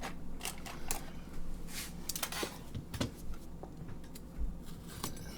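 Scattered small clicks, taps and brief rustles of hands handling a small pocket knife and a box of bullets, getting ready to cut the packaging open.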